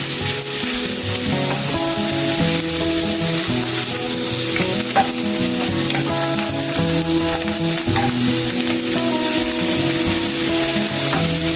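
Chorizo and cured antipasto meats sizzling as they fry in olive oil in a pan, with a few sharp clicks of stirring. A soft melody of held notes plays underneath.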